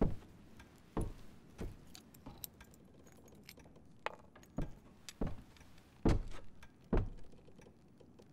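Sharp, irregular clicks and light taps of small objects being handled on a small wooden box at a table, about nine in all, the loudest a pair near the end.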